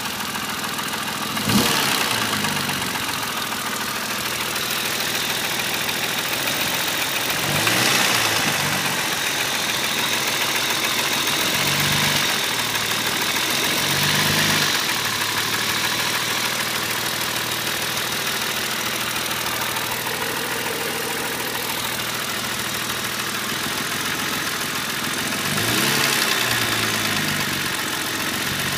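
BMW E36 M3's 3.0-litre S50 straight-six idling, blipped to low revs about five times, each blip rising and falling in pitch, with a sharp click about a second and a half in. The owner hears a knocking tick from around the inlet manifold and does not know its cause.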